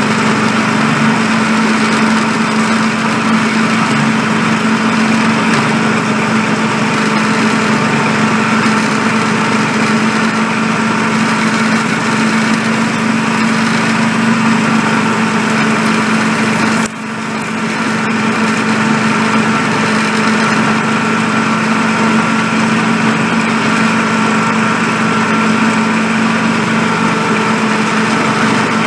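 Small engine of a miniature-railway works locomotive running steadily as it pulls along the track, with a steady hum. The sound drops out briefly about two-thirds of the way through, then comes back.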